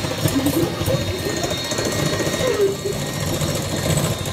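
Electric hand mixer running with its beaters in a bowl of white mixture, a steady fast-pulsing motor buzz.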